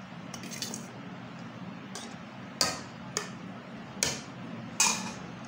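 A slotted steel spoon knocking and scraping against a perforated steel strainer and pot while boiled rice is spooned out for biryani layering. About six sharp metallic clinks come at irregular intervals, the loudest near the end.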